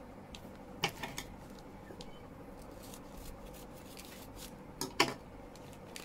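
A plastic mailer bag being cut open with scissors and handled: scattered snips, crinkles and clicks, the sharpest about five seconds in.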